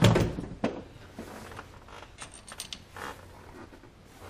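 Metal clunks, clicks and creaks as a cam phaser on a Ford 5.4L three-valve engine is worked loose on its camshaft by hand. There is a loud knock right at the start, then scattered clicks and short rattles.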